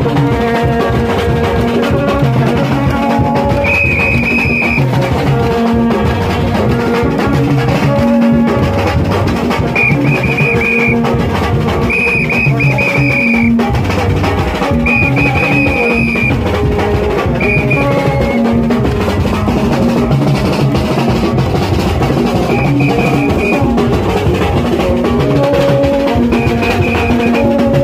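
Haitian rara band playing: vaksin tube trumpets, each sounding one held note in turn in a repeating interlocking pattern, over steady hand-beaten drums. A shrill high note cuts in in short bursts now and then.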